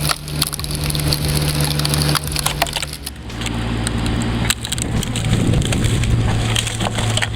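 Mini excavator's engine running while its hydraulic conical screw splitter bores into a log, the wood cracking and splintering repeatedly. The engine note drops about three seconds in.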